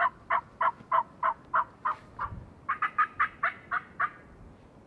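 Wild turkey yelps: a steady series of about eight yelps, roughly three a second, then a quicker run of about seven higher notes near the end.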